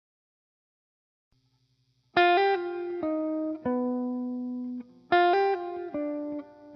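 Background music: after a silence, a plucked guitar melody starts about two seconds in, and its opening phrase repeats about three seconds later.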